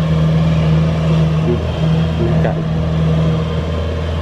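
Kubota DC-70 tracked combine harvester's diesel engine running steadily as the machine drives along a field track: a continuous even engine hum.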